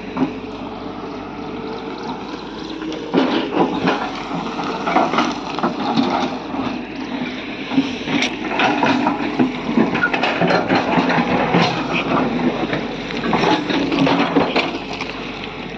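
Hitachi excavator's diesel engine running under load while its bucket works loose blasted rock and soil, with rocks clattering and scraping from about three seconds in.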